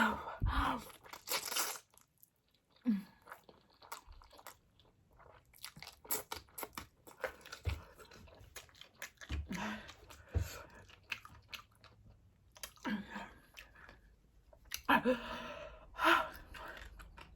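Close-up crunchy chewing and biting of spicy noodles mixed with crushed Hot Cheetos, with many small crisp crunches and a few short vocal sounds between mouthfuls.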